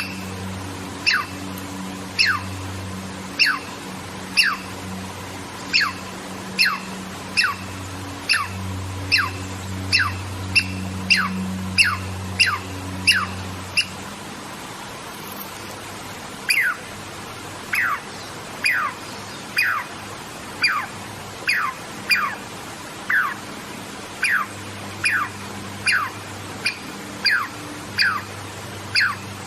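Douglas squirrel calling over and over with a short whistled note that falls in pitch. The calls quicken to about two a second, break off for a couple of seconds midway, then resume at a slightly slower pace.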